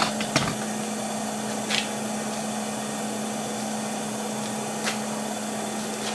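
Electric forge blower running steadily, a constant hum with a rush of air through the burning firepot, and a few sharp crackles from the fire.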